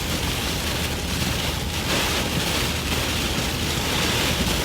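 Heavy wind-driven rain blasting on a car's windshield, heard from inside the moving vehicle as a steady, dense hiss, with very strong winds buffeting the car.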